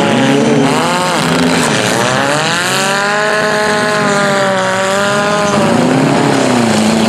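Engines of several compact demolition derby cars revving and running under load, their pitch rising and falling with the throttle, one long rev swelling up and easing off in the middle.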